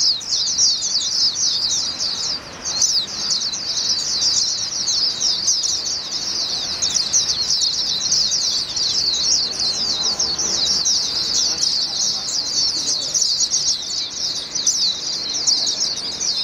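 A Swinhoe's white-eye, a competition-trained songbird, singing one long unbroken song of rapid, high-pitched twittering notes.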